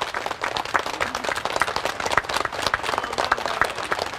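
A crowd of guests applauding, many hand claps overlapping in a steady, dense patter.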